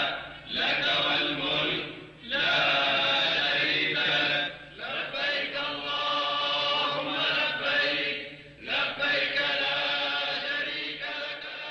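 Voices chanting together in long, drawn-out phrases, breaking off briefly for breath every few seconds.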